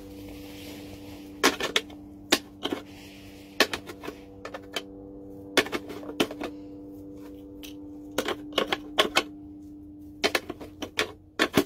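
Irregular clusters of sharp plastic clicks and taps as a crow's beak pecks at a plastic shape-sorter toy and pulls a block out of it, over a steady low hum.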